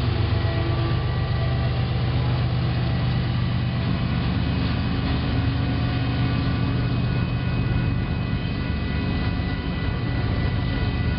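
Union Pacific diesel locomotives heading a double-stack freight train pass close by, with a steady low engine drone that eases slightly in the last few seconds.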